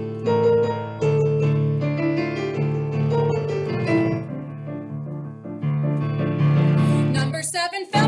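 Digital piano playing the song's accompaniment in chords over a repeating bass. A brief warbling sound comes in near the end.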